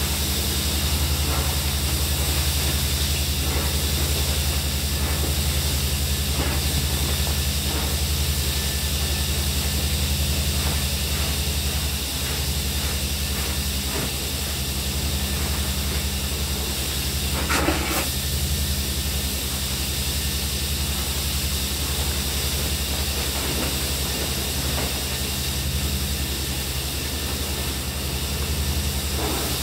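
Abrasive sandblasting equipment running steadily: a constant air hiss over a low machine hum, with a single sharp knock about 18 seconds in.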